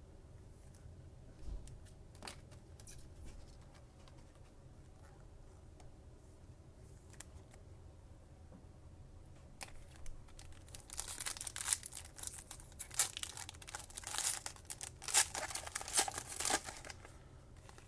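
A foil trading-card pack torn open and its wrapper crinkled: a few faint handling clicks, then from about ten seconds in a run of crackling tearing and crinkling lasting about six seconds.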